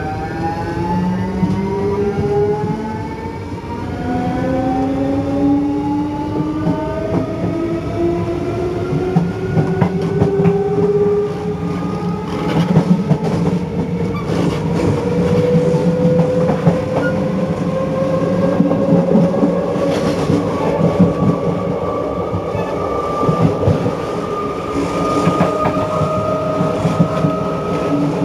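Siemens/EFACEC 1TB2222 three-phase asynchronous traction motors of a CP 2300 series electric multiple unit under power as the train accelerates. Several whining tones rise in pitch, fall back and climb again a few times in the first ten seconds. Then a steadier whine rises slowly over the rumble of the wheels and clicks from the rail joints.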